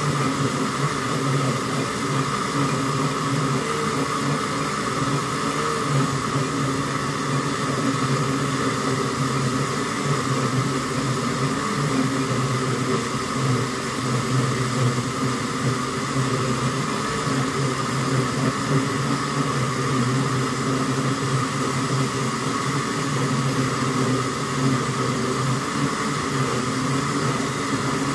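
Electric countertop blender running steadily, its motor whirring as it blends a full jar of cantaloupe shake.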